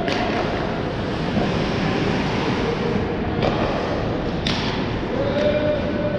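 Ice hockey game play on a rink: a steady hiss of skates on the ice, broken by about four sharp knocks of sticks and puck.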